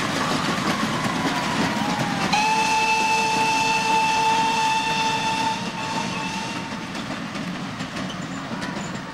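A steam locomotive's whistle sounds one long, steady note for about three seconds, starting a little over two seconds in. Underneath it runs the noise of a passenger train going by.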